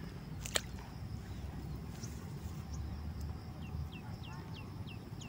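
Quiet outdoor ambience with a low steady rumble and a single sharp click about half a second in. From about three and a half seconds a bird calls in a run of short, falling chirps, about three a second.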